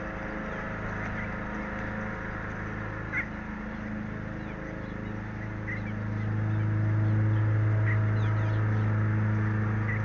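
A steady low mechanical hum with several overtones, swelling louder about six seconds in. Short bird chirps repeat about every two seconds over it, with a few fainter high, falling notes near the end.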